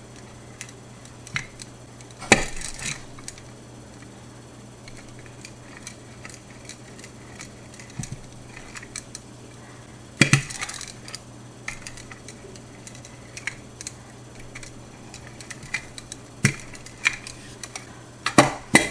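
Wooden rolling pin working thin dough pieces on a floured board: quiet rolling and handling with a few sharp knocks of the pin against the board, about two seconds in, around ten seconds in and near the end, over a low steady hum.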